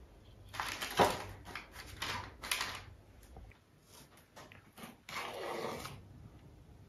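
Two spoons scraping and tapping against each other and the bowl as lumps of soft biscuit dough are scooped out and set down on a baking tray, in several short scrapes and clicks with a longer scrape near the end.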